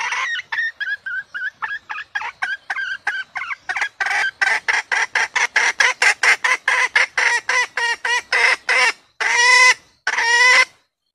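Female red junglefowl (wild hen) clucking: a run of short notes, about three a second, that speeds up and grows louder, ending in two longer drawn-out calls.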